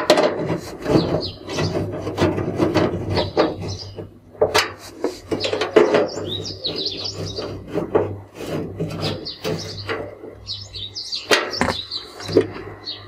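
Handling noise from a Whirlpool front-loading washing machine being put back together: its plastic top cover and metal cabinet scraping, rubbing and knocking irregularly under the hands.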